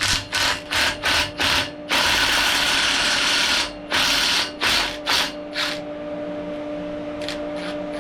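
Ratchet wrench worked in quick back-and-forth strokes, about three a second, with one unbroken spin of about two seconds in the middle, backing out a bolt that has caught a bit of weld. The strokes stop about six seconds in, leaving a steady hum.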